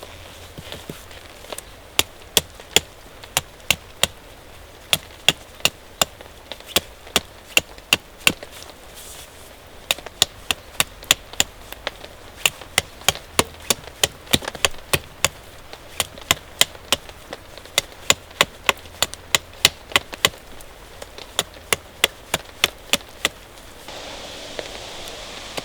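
A knife chopping food on a wooden board: a long run of sharp taps, about two to three a second, with a couple of short pauses. A steady hiss of rain comes up near the end.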